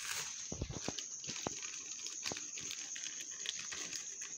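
Plastic packaging handled by hand: irregular light clicks and crinkles of bubble wrap and the anti-static bag around a graphics card, over a faint, steady, high-pitched whine.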